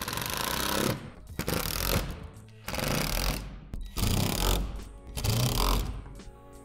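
Cordless power driver running in five short bursts, each under a second, driving screws into the plastic shed wall panels.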